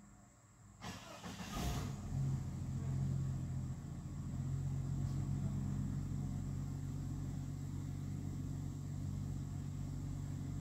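2002 Chevrolet Suburban V8 cranked and catching about a second in, then settling into a steady idle.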